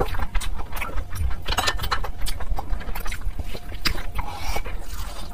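Close-miked eating sounds: a hand squishing and mixing fried rice with curry on a plate, with wet chewing, as a fast run of sticky clicks and squelches.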